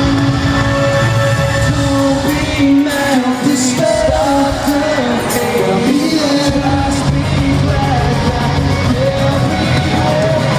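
Pop-punk band playing live with lead singing, heard loud from within an arena crowd. The bass end thins out for a few seconds in the middle, leaving mostly the vocals, then the full band comes back in.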